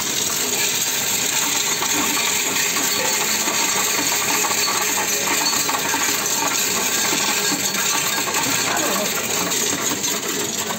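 Coinstar coin-counting machine taking in a stream of copper euro cents: a continuous dense clatter of small coins tumbling and rattling through the counter as they are pushed by hand across its perforated metal input tray.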